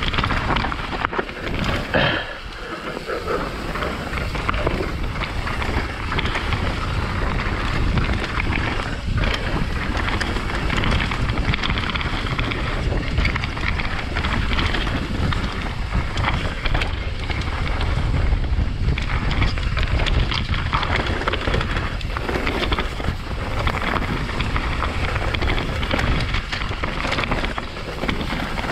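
Wind buffeting a helmet-mounted GoPro microphone during a mountain-bike descent, over the steady rumble of tyres on dirt trail. The NS Define enduro bike knocks and rattles over bumps many times throughout.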